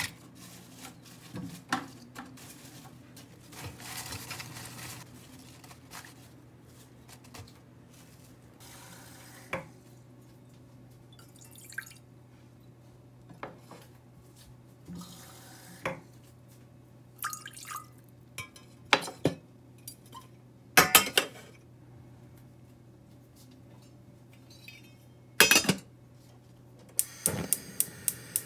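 Stainless steel pots and a lid clinking and clanking as a steamer pot is set up on the stove: scattered sharp metallic knocks, with the loudest clatter in the last third as the pot and lid go on. Softer handling noises of cabbage leaves in a steel bowl come near the start.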